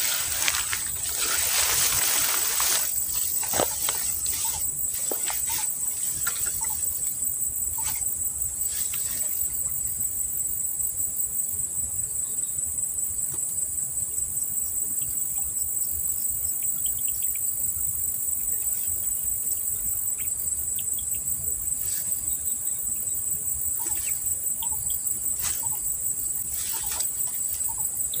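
Steady high-pitched insect chorus with a fast pulsing trill on top. Louder noise and scattered clicks mark the first few seconds.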